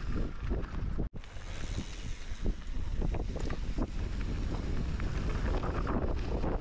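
Wind buffeting the microphone of a camera carried on a mountain bike descending a rough trail, with the bike's rattles and knocks over rocks and roots. The sound drops out for an instant about a second in.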